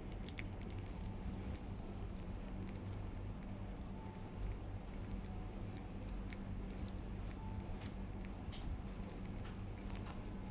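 Budgies pecking and nibbling at lettuce leaves: irregular small crisp clicks and ticks over a steady low hum.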